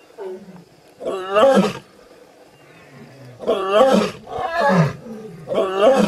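Lionesses snarling and growling in several loud bursts, with short gaps between them, warning off a leopard.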